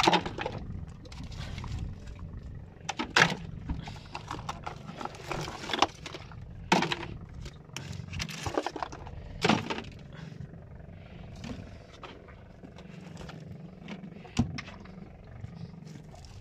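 Shells, rocks and sea urchins clattering in a plastic bucket as a hand rummages through the catch: a few sharp knocks a few seconds apart among quieter scraping and rustling.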